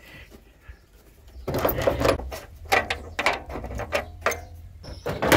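Sheet-metal rear body of a VW Kombi being handled by hand: a busy run of clicks, knocks and scrapes starting about a second and a half in.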